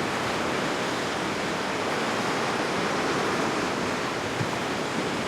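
Steady rushing noise of surf and wind at the water's edge.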